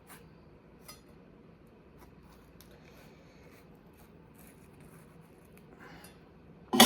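Faint kitchen handling sounds during food preparation: a few small clicks of utensils, then one sudden loud clack near the end.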